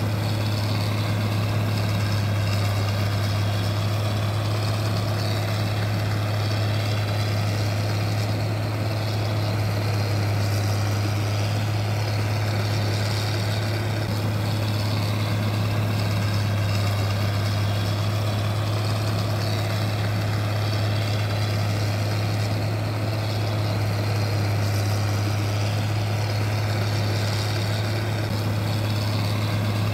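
A steady, unchanging low mechanical hum with one strong deep tone, like an engine or motor running at constant speed.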